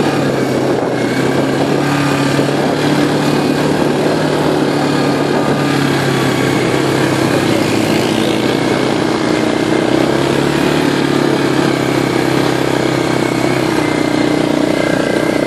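ATV (quad bike) engine running steadily at a near-constant pitch.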